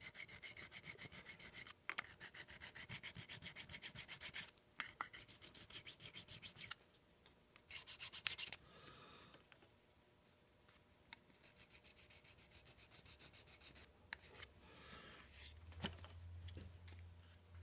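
Deburring a milled 1018 steel block by hand: a tool rubbed quickly back and forth along the edge, scraping in several runs of rapid strokes with short pauses between them. A low steady hum comes in near the end.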